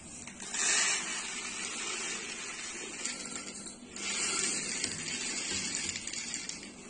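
Dried peas pouring from a plastic jar into a small ceramic cup, a steady rushing rattle that swells about half a second in and again about four seconds in.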